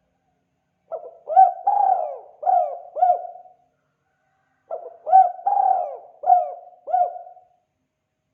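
Spotted dove (tekukur) cooing the 'kuk 2' song, two identical phrases of about five notes each with a pause between them.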